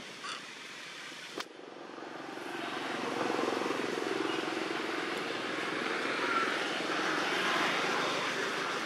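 A distant engine drone that builds up over a second or two and then holds steady.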